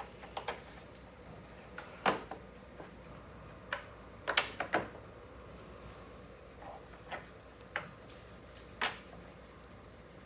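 Metal bolts clicking and knocking as they are handled and fitted into a chair frame during assembly: a dozen or so separate sharp clicks, several in quick succession around the middle.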